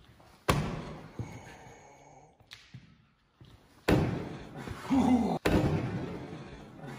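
Two hard thuds of a machete being driven into the lock of a steel door. The first, about half a second in, leaves a faint metallic ring, and the second comes just before four seconds in. A man cries out in pain about a second after the second blow.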